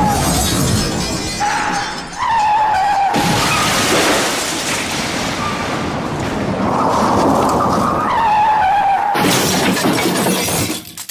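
Car crash sound effect: tyres squealing in repeated skids over constant crunching and smashing noise. A heavy crash of breaking glass and metal comes about nine seconds in, then breaks up and dies away near the end.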